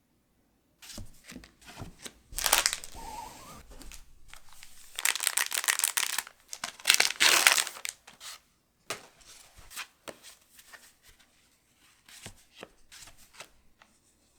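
Foil Pokémon booster pack wrapper being torn open and crinkled by hand. The loudest crackling comes in two spells, about two and five seconds in, followed by lighter rustles and ticks of handling.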